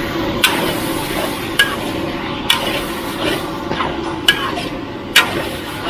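Metal spatula clanging and scraping against a wok while stir-frying, over a steady sizzle and burner noise. Sharp clangs come about once a second, some ringing briefly.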